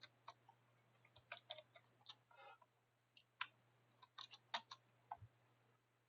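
Faint, irregularly spaced clicks of a computer mouse and keyboard keys, some single and some in short clusters, over a steady low hum.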